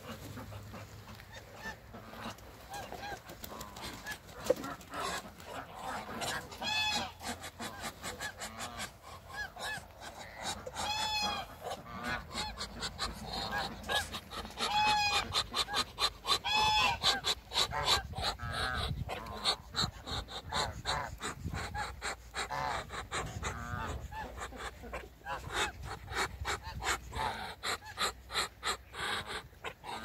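Flock of domestic geese honking repeatedly, many calls overlapping, with a few louder drawn-out honks standing out.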